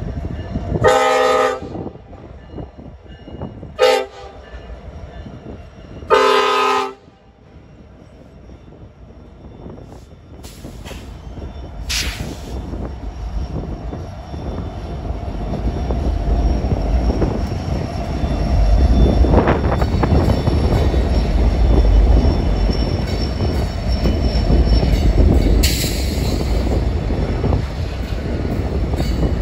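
Diesel locomotive horn sounding for a grade crossing: a long blast, a short blast and a long blast in the first seven seconds. Then the lead locomotives and a double-stack intermodal train pass, a growing rumble of diesel engines and wheels on rail, with a brief wheel squeal about twenty seconds in.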